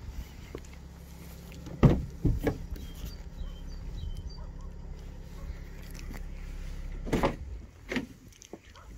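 Rear door of a Mercedes-Benz Sprinter 519 CDI minibus being unlatched and swung open. A sharp latch knock comes about two seconds in, with a second one just after, and two shorter clunks near the end, over a steady low rumble.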